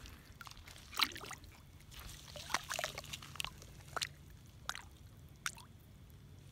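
Water splashing and dripping in a string of short sloshes as a hand grips a landed carp by the mouth at the water's surface, the loudest splash about a second in.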